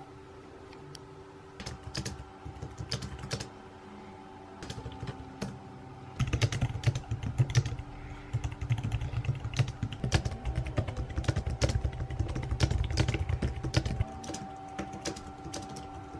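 Typing on a computer keyboard: a few scattered keystrokes at first, then fast continuous typing for about eight seconds from around six seconds in, before it thins out again.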